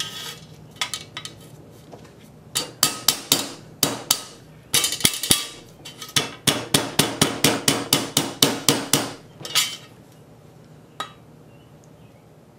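Rubber mallet striking a bent sheet-metal shroud holder against a flat steel plate to straighten it. Scattered blows come first, then a quick run at about three to four strikes a second, each with a short metallic ring, and then a few light knocks near the end.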